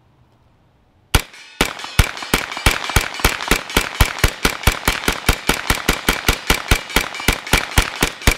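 Freedom Ordnance FX-9 9mm straight-blowback carbine in rapid semi-automatic fire: one shot about a second in, then a steady string of about four shots a second. The gun feeds and cycles through the magazine without a stoppage.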